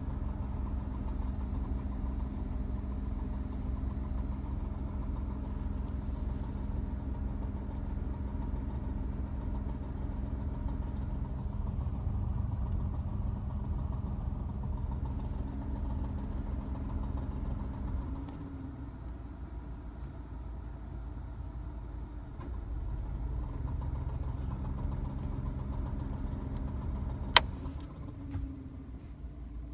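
Air conditioning running with a low clacking rattle. The noise drops away about two-thirds of the way through and comes back a few seconds later, and a single sharp click follows near the end.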